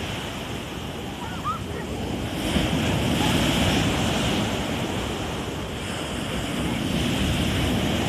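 Rough sea surf breaking and washing up the beach: a continuous rushing that swells louder about two and a half seconds in and again near the end, with wind buffeting the microphone.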